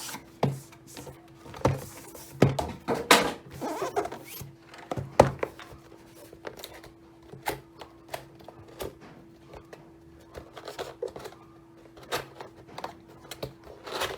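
Cardboard keyboard box being opened and its contents handled: scattered knocks, clicks and short sliding, rubbing sounds of the lid and packaging, over a faint steady hum.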